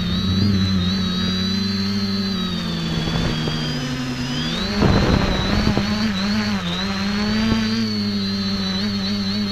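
X550AIOP quadcopter's electric motors and propellers running, heard through its onboard camera's microphone as a steady multi-toned drone with a high whine above it. Its pitch sags slightly just before the middle, then comes back up with a brief rush of air.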